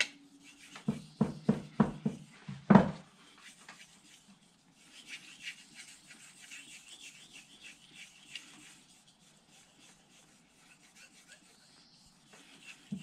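Steel knife blade stroked back and forth on a sharpening whetstone: a run of loud rasping strokes in the first three seconds, then fainter, quicker scraping strokes that die away near the end.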